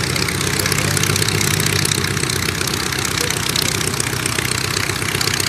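de Havilland Tiger Moth's four-cylinder inverted inline engine running steadily at low speed with an even, fast firing pulse.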